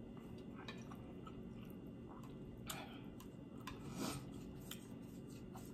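Faint chewing and mouth sounds of a person eating spaghettini in sauce, with scattered soft clicks as a plastic fork twirls noodles on the plate; the loudest clicks come a little under 3 s and about 4 s in.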